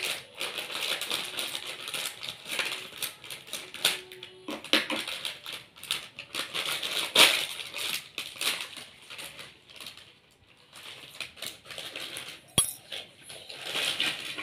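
Plastic snack packet crinkling and rustling as it is snipped open with scissors and handled, in irregular crackly bursts. A single sharp click comes near the end, and snacks rattle out into a plate at the close.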